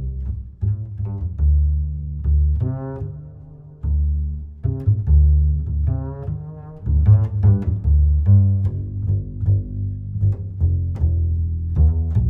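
Background music with a prominent plucked and bowed double bass line and a higher melodic part coming in and out.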